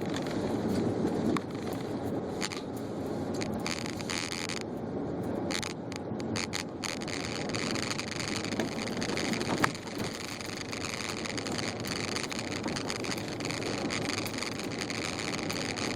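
Car driving on snow-covered streets, heard from inside the cabin: steady tyre and road noise with light crackling, and a single sharp click near the ten-second mark.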